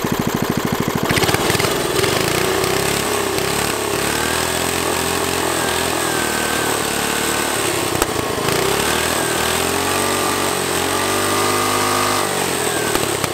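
5 hp flathead Briggs & Stratton single-cylinder engine running on the go-kart. About a second in, its even firing note turns abruptly into a harsher, hissing rasp, the sign of the reused old head gasket blowing out. It then keeps running with its revs rising and falling as the throttle is worked by hand.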